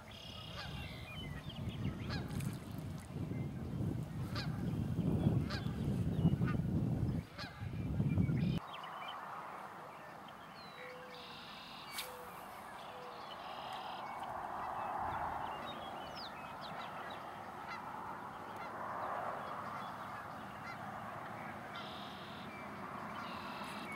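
Geese honking in short repeated calls. For the first eight seconds or so they sit under a loud low rumbling noise that cuts off abruptly.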